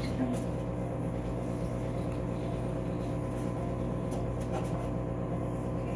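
Steady electrical and mechanical hum of operating-room equipment, made of several even tones, with a few faint clicks.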